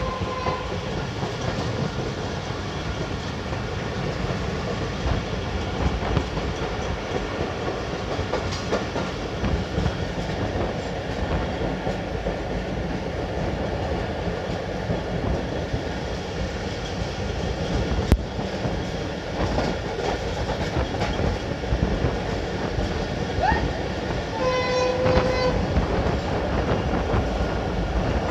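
Passenger train running at speed, heard from an open coach doorway: a steady rumble and rattle of wheels on the rails. A train horn sounds briefly at the start and again for about a second near the end.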